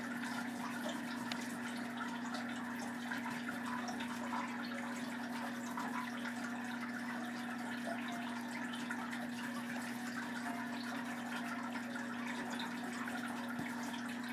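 Steady background hum with one low tone and an even hiss, with faint scratchy strokes of a green oil pastel on paper over it.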